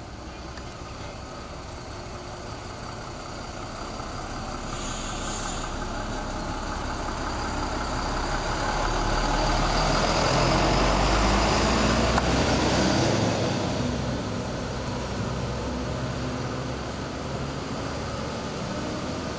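A coach bus's engine running as the bus pulls away and passes close by, growing louder to a peak about halfway through and then fading as it drives off. A brief hiss comes about five seconds in.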